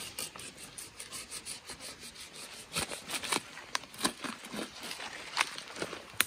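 Utility knife blade sawing through a soil-filled black plastic nursery bag to cut its bottom off, an irregular run of short scraping and crinkling strokes, with a sharp click near the end.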